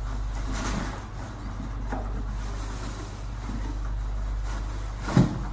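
A cat scrabbling into a cardboard box, with a few soft rustles and bumps and one sharp thump about five seconds in, over a steady low hum.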